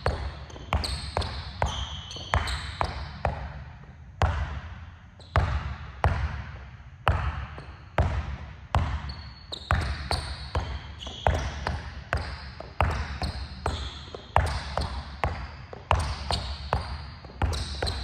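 A basketball dribbled hard and fast on a gym floor during crossover and between-the-legs drills, bouncing about three times a second with a hall echo and a short break about four seconds in. Sneaker soles squeak on the court between bounces.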